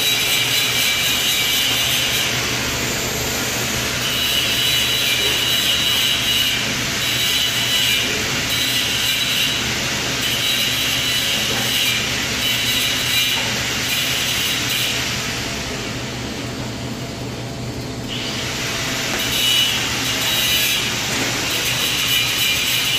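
TIG (argon) welding arc running on a test coupon with a steady hiss and a high buzz that breaks up now and then, as the welder lays the capping pass. The arc noise drops away for about three seconds near the end, then resumes.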